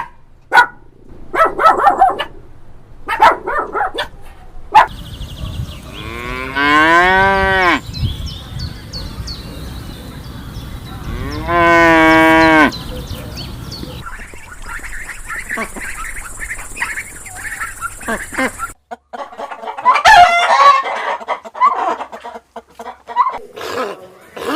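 A cow mooing twice in long calls, each rising then falling in pitch. Shorter calls of farm poultry come before and after.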